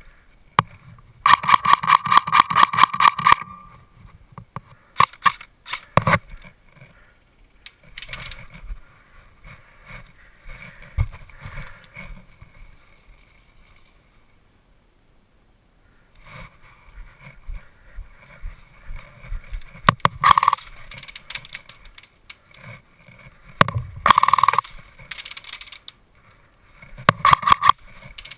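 Airsoft rifle firing full-auto bursts: a long string of rapid shots about a second in, then a few short bursts later, with single shots or clicks between.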